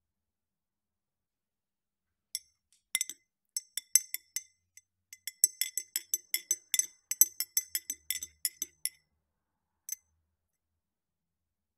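Metal spoon stirring in a ridged drinking glass with ice, clinking against the glass. A few scattered clinks start about two seconds in, then a quick run at about four to five clinks a second, with a single last clink near the end.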